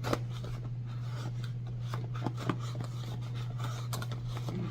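A cardboard shipping box being opened with scissors: rubbing and scraping, with scattered light clicks.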